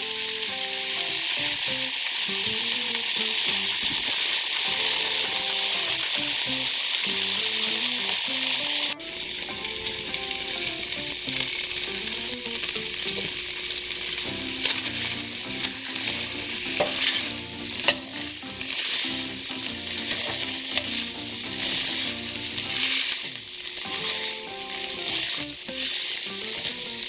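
Thin-sliced sirloin steak sizzling in hot sunflower oil in a stainless steel skillet, a steady sizzle. It breaks off abruptly about nine seconds in and then carries on. Through the second half a fork stirs and scrapes the meat around the pan in repeated short strokes.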